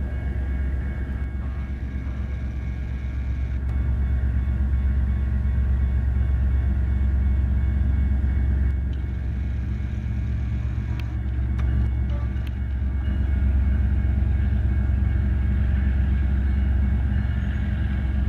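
Diesel-electric freight locomotives, an EMD SD70ACe leading a GE AC45CCTE, running past with a Union Pacific intermodal train: a steady, deep engine rumble that grows a little louder as the locomotives draw level.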